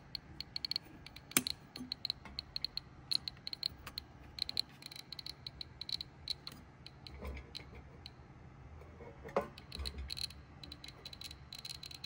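CD V-700 Geiger counter clicking at irregular, random intervals as it counts background radiation, with no squeal from its high-voltage circuit. One sharper click comes about a second and a half in.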